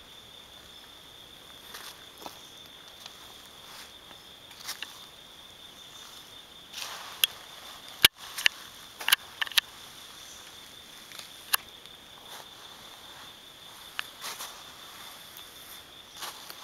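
A steady high insect drone, like a cricket or cicada chorus, with footsteps scuffing on a dirt path. A cluster of sharp clicks and knocks about halfway through is the loudest sound.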